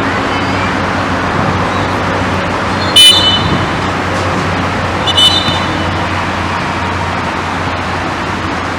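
Two short, shrill whistle blasts from a referee's whistle, the first about three seconds in and a second, shorter one about two seconds later, over a steady background of outdoor noise.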